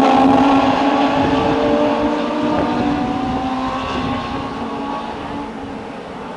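Pack of Legends race cars with motorcycle engines running on the oval, several engine notes overlapping and sliding slowly down in pitch, fading steadily after the first second.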